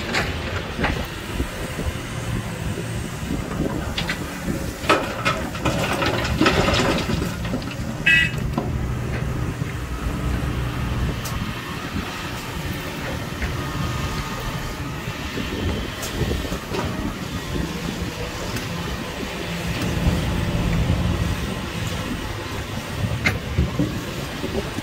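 Hitachi Zaxis 470R excavator's diesel engine running steadily under load, with rock clattering and banging, loudest about five to seven seconds in, as the bucket works the load. There is a brief high squeak about eight seconds in.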